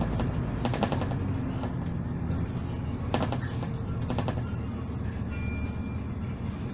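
Cabin sound inside a Volvo Super Olympian double-decker bus: a steady low diesel engine rumble, broken a few times by short bursts of rapid rattling from the bodywork and fittings.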